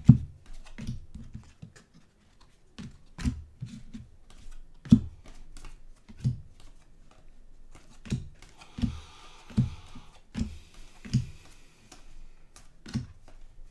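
Trading cards and plastic card holders being handled on a tabletop: irregular taps, clicks and light knocks, with a short rustle about nine seconds in.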